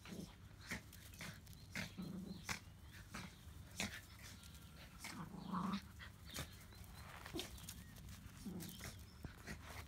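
Schnauzer puppies at play, giving about four short low growls amid scattered clicks and rustles.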